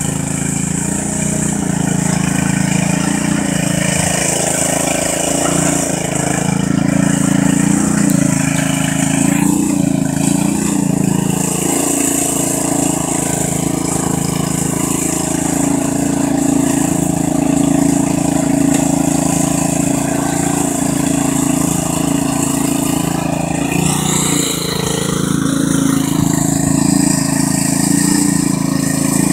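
Riding lawn mower's engine running steadily as it is driven through mud, its note shifting about ten seconds in and again a few seconds before the end.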